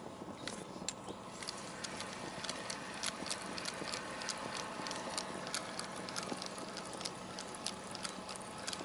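Spinning fishing reel being cranked as the line is retrieved, giving a quick, irregular run of small clicks that grows busier after the first second or so.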